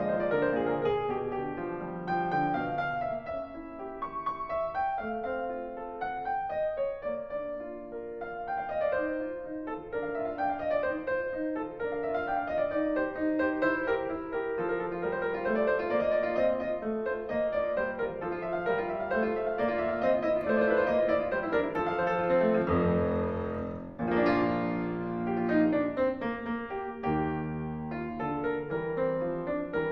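Background music: a piano playing a continuous melodic piece with chords.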